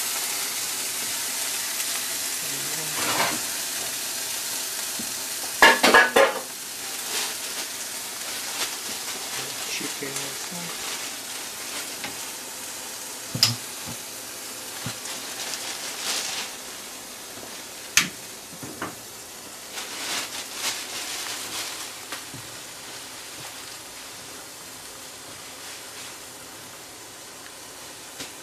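Red-marinated meat sizzling as it fries in a black skillet, the sizzle slowly growing quieter. Several short clatters of a utensil against the pan break through, the loudest cluster about six seconds in.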